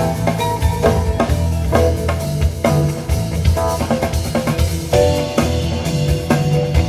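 Instrumental psychedelic rock jam from a band: a drum kit played busily under electric guitar and keyboards.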